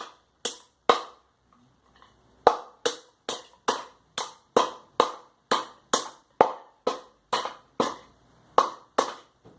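Repeated sharp knocks of a tool driven into a thick bamboo culm to break out the internal node membranes: two blows, a short pause, then a steady run of strikes about two to three a second.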